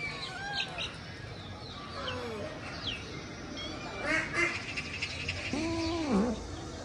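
Cats meowing while being fed: several short, high mews, then one longer, lower meow that rises and falls near the end.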